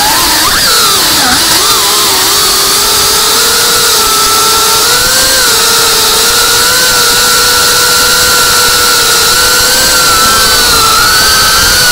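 FPV quadcopter's brushless motors and propellers whining in flight. The pitch wavers with the throttle over the first two seconds, then holds steady, rising slightly near the end.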